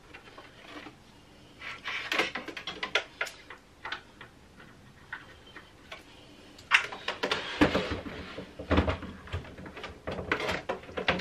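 Handling noise from a Janome HD9 sewing machine: a few light clicks and knocks as its power lead is plugged back in, then, from about six and a half seconds in, a run of louder knocks and thumps as the machine is shifted back into its sewing table.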